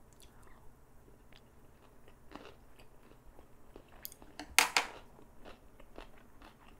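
Chewing a mouthful of egg-wrapped kimbap: soft wet mouth sounds and small crunches, with one louder, sharp sound about four and a half seconds in.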